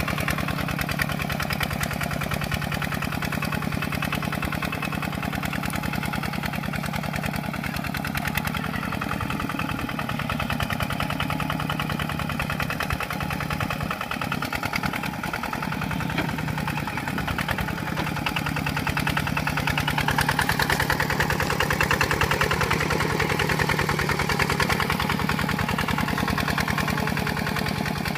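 Kubota RT140 Plus single-cylinder diesel engine on a two-wheel walking tractor, running steadily with a rapid chugging beat while its rotary tiller churns through mud. It grows a little louder about two-thirds of the way through.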